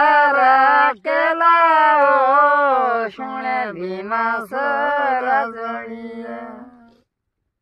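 Elderly woman singing a Himachali folk song unaccompanied, in long held and gliding notes. Her voice trails off and stops about seven seconds in.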